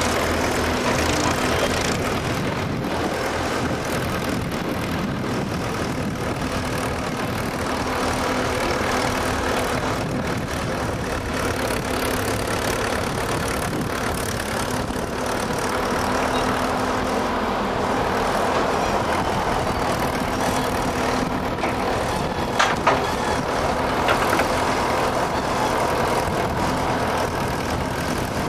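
Vintage Menck M40 cable excavator with a backhoe bucket at work, its engine running steadily while the boom raises and swings. A couple of sharp knocks come late on.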